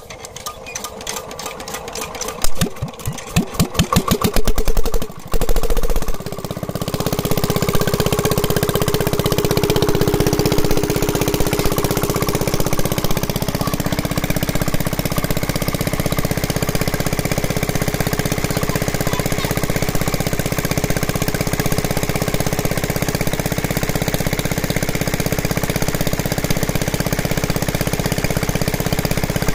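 A small engine starts up, its knocks coming faster over the first five seconds or so, then settles into a steady run for the rest of the time.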